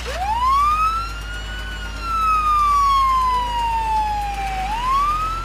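Ambulance siren on the wail setting: the pitch climbs quickly, falls slowly over about three seconds, then climbs again near the end.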